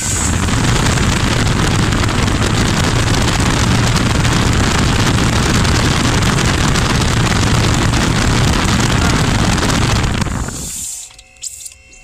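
Dodge Ram HEMI V8 running with a valve cover off and the valvetrain open, then shut off about ten and a half seconds in. The engine has a misfire on cylinder one, traced to a worn cylinder-one intake cam lobe that is not lifting the valve fully.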